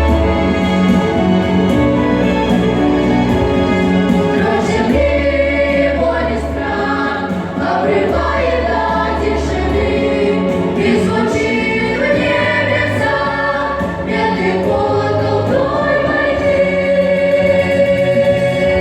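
A song with choral singing over sustained instrumental chords and a deep bass line.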